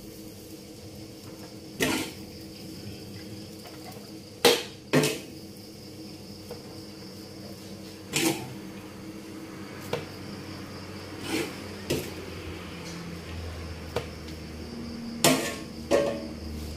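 Fried rice being scooped from a large metal wok into a stainless steel serving tray: about ten sharp, irregular knocks of the scoop against the wok and tray, over a steady hum.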